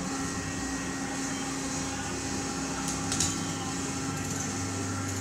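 A steady mechanical hum with a brief click about three seconds in.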